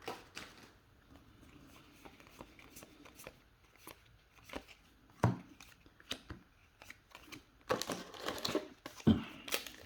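Trading cards being handled and a foil booster-pack wrapper crinkling: scattered soft clicks and rustles, a sharper tap a little past five seconds, and a denser stretch of crinkling from about eight seconds in.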